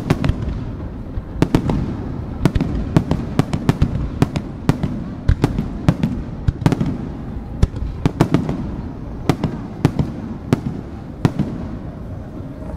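Aerial firework shells bursting overhead at close range: many sharp cracks at uneven spacing over a low rumble. The cracks thin out near the end.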